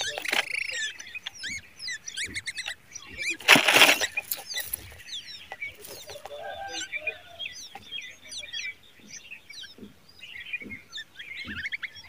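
Nestlings in the nest giving many short, high begging chirps, rising and falling, with a brief loud flutter of the parent bird's wings about three and a half seconds in.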